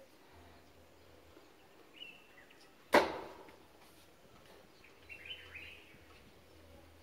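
A single sharp crack about three seconds in, fading quickly, with faint bird chirps shortly before and after it.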